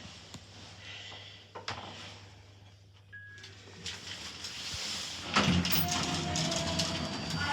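Passenger lift's sliding doors running over a steady low hum, with a short high tone about three seconds in. A louder, busier mix of sound with a steady tone comes in about five seconds in.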